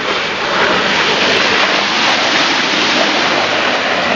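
Off-road vehicle ploughing through deep mud and water: a steady, loud rush of spraying water and mud, with the engine faintly audible under load beneath it.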